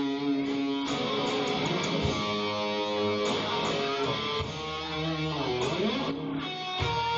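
A band playing an instrumental passage of a blues song, led by electric guitar over a bass line. About five to six seconds in, one note slides down and back up.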